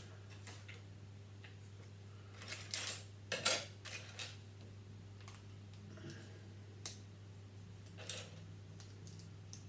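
Small plastic Lego pieces clicking and rattling as they are handled and fitted together: scattered clicks, busiest and loudest around three and a half seconds in, over a steady low hum.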